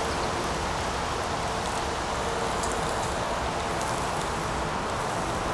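Lamb shoulder chops sizzling on a charcoal grill grate, a steady hiss with faint scattered crackles as fat drips onto the coals.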